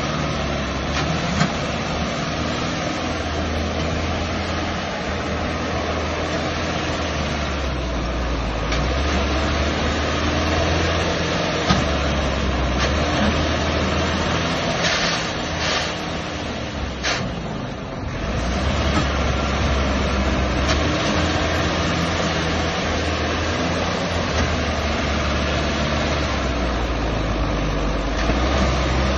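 Sonalika DI 60 tractor's diesel engine running hard under load, its low note swelling and easing several times as the stuck tractor and loaded trailer strain to pull out of soft ground.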